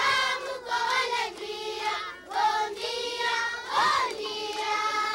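A group of children singing together in unison, in phrases of held notes with short breaks between them.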